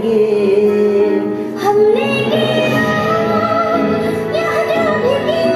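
A Hindi song: a sung melody with long held notes over instrumental backing.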